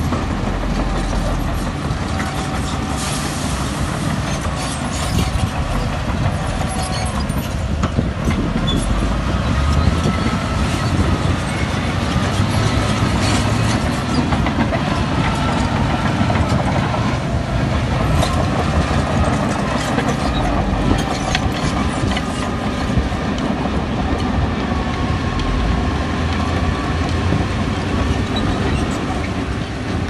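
Crawler bulldozer's diesel engine running, with its steel tracks clanking and a wavering squeal that rises and falls.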